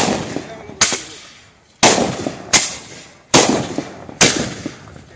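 Mascoli, small gunpowder-charged mortars set out in rows on the road, firing one after another in a chain: six sharp, loud bangs, about one every 0.85 s, each dying away over about half a second.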